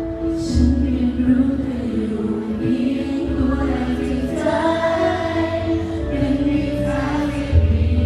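A youth choir singing a Thai song with a woman's lead voice, through stage microphones, over deep bass notes that change every second or two.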